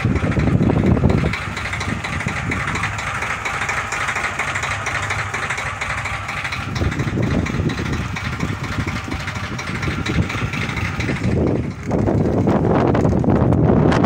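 Fishing boat's engine running steadily at sea. Wind buffets the microphone at the start and again near the end.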